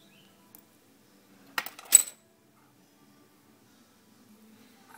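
Two quick metallic clinks less than half a second apart, from a small metal fly-tying tool being handled or set down on the bench; the second is the louder.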